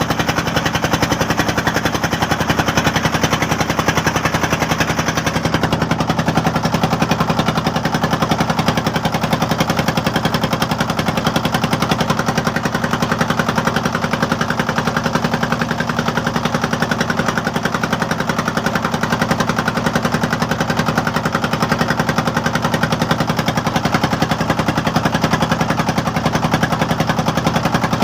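Boat engine running steadily with a rapid, even chugging beat.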